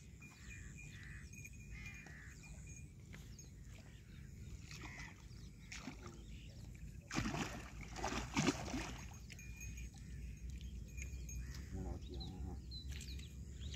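A large hooked rohu splashing at the surface close to the bank as it is brought in, with a burst of splashing about seven seconds in that lasts around two seconds.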